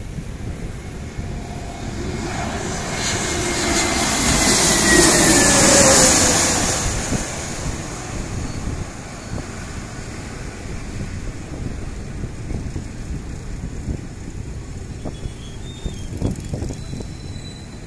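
Airbus A321neo jet with Pratt & Whitney geared turbofan engines passing low on final approach. The engine whine swells to its loudest about five seconds in and drops in pitch as the aircraft goes by. It then settles into a steady, lower rumble as the plane lands and rolls out.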